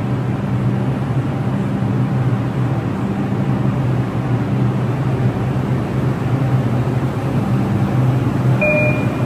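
New York City subway train at the station platform: a loud, steady rumble with a low hum. A short high beep sounds near the end.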